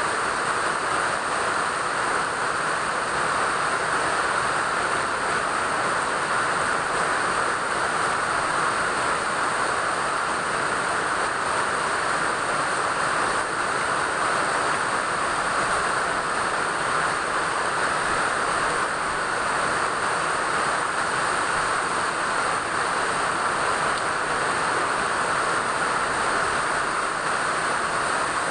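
Steady rainfall, a continuous even hiss that neither swells nor lets up.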